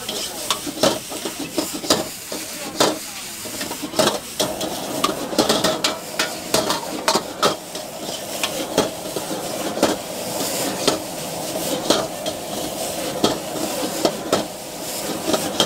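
Metal ladle scraping and clanking against a steel wok in quick, irregular strokes while noodles are stir-fried, over a steady sizzle of the food frying in hot oil.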